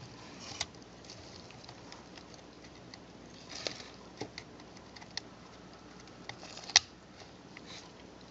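Small plastic and metal parts of a partly reassembled Panasonic Lumix ZS10 compact camera clicking and tapping as it is turned over in gloved hands. There is a sparse scatter of faint clicks, with one sharper click near the end.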